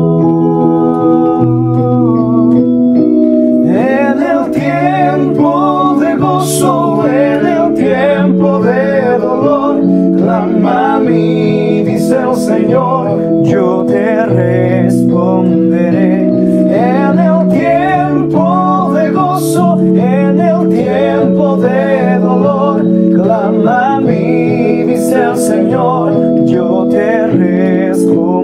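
Electronic keyboard playing slow, sustained chords, joined about four seconds in by a man singing a wavering melody over it.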